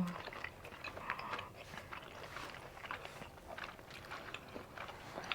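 Soft, irregular chewing and little wet clicks of people eating with their bare hands.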